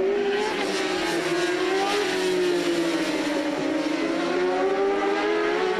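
A pack of superbike racing motorcycles at high revs through a corner. Their overlapping engine notes rise and fall gently.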